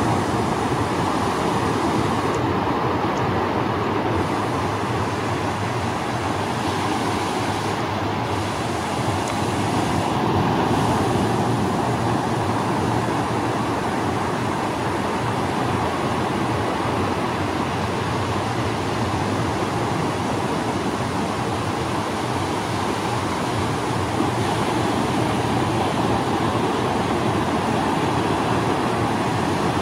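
Ocean surf breaking and washing up a sandy beach, a steady, unbroken rush of noise.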